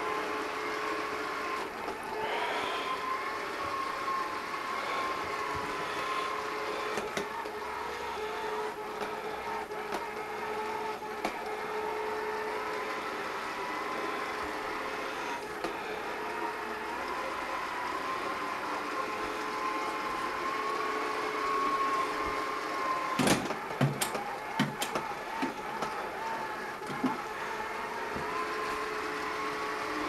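Home Hero robot vacuum running on carpet: a steady motor whine with a slightly wavering pitch, its battery running low as it seeks its charging base. A cluster of sharp knocks and clicks comes about three quarters of the way through.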